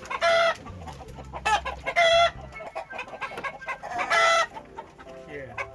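Backyard chickens clucking, with a loud, short squawking call about every two seconds.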